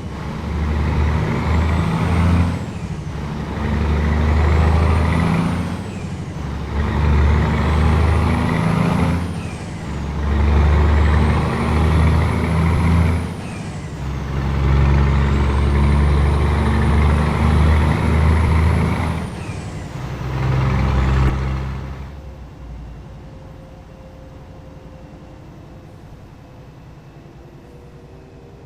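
Scania 500S truck's 13-litre straight-six diesel, on a straight-pipe exhaust, revved again and again in bursts of a few seconds, rising and falling in pitch with each one. About three-quarters of the way through it drops back to a steady, much quieter running.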